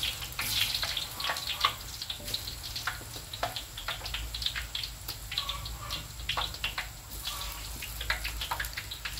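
Raw banana slices frying in hot oil in a wok, a steady sizzle with many irregular crackles and pops as fresh slices are shaved into the oil.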